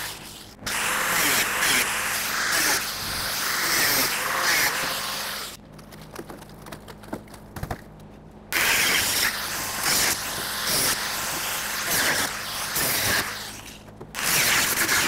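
Cutoff wheel on a grinder cutting through the rusted sheet steel of a pickup bed's wheel arch, running in long stretches. It stops for a quieter gap about six to eight seconds in, and dips briefly near the end.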